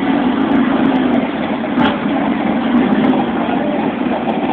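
Engines of a stream of classic and modern cars cruising slowly past on a busy street: a steady low drone of mixed traffic, with a short click about two seconds in.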